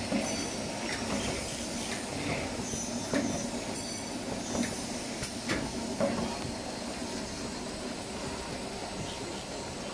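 Fully automatic single-roll kitchen towel packing machine running: a steady mechanical rumble with irregular sharp knocks and clacks as the rolls feed through the mechanism.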